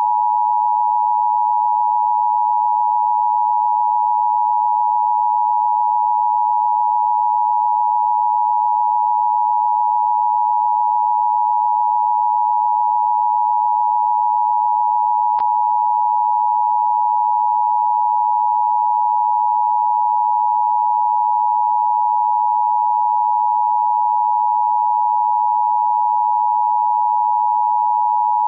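Emergency broadcast alert tone: one steady electronic tone near 1 kHz, held at a constant level, which fills the wait before a civil emergency message is read. A faint click sounds about halfway through.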